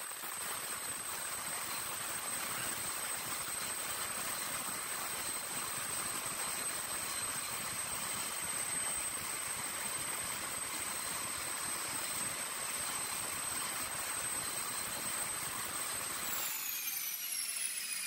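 Jet engine running with a steady rushing noise and a thin high whine. About sixteen seconds in, the whine and its overtones start falling in pitch as the engine winds down.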